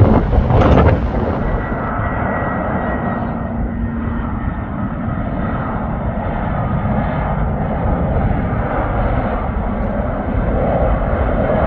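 Airliner on landing approach, its engines running loud and steady with a faint held whine, and a short loud burst of noise in the first second.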